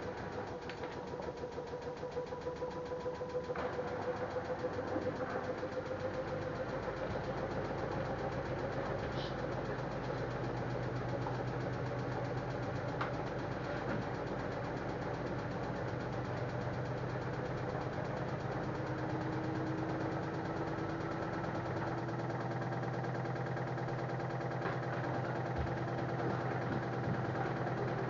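LG F1089ND washing machine spinning its drum: a steady motor hum with a whine that slowly rises in pitch as the drum speeds up.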